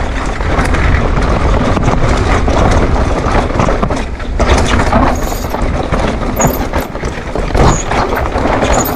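Downhill mountain bike running fast over a dirt and rock trail: tyre noise and the rattle of the bike, with sharp knocks at intervals as it drops over rocks. Wind rushes across the bike-mounted camera's microphone.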